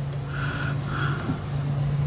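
A steady low background hum, with a couple of faint soft sounds over it.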